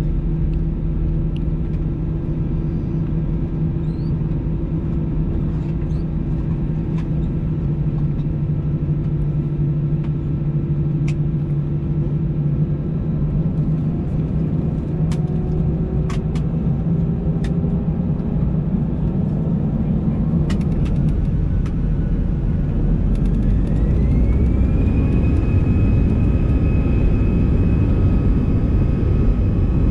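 Airbus A320 jet engines heard from inside the cabin, first at a steady idle whine. About halfway through they spool up with a rising whine that levels off near the end, as takeoff thrust is set and the takeoff roll begins. A few faint clicks sound from the cabin.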